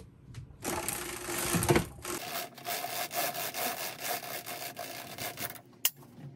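A zebra (striped dual-layer) roller blind being raised and rolling up: a rattling run of fast clicks lasting about five seconds, ending in one sharp click as it stops.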